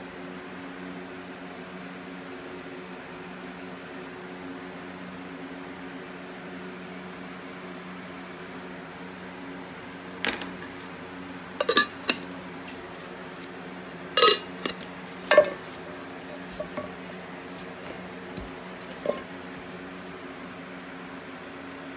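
Metal paint cans, lids and a plastic mixing cup clinking and knocking as they are handled while paint is mixed. The knocks come in a scattered run of sharp clinks starting about halfway through. A steady low machine hum runs under them.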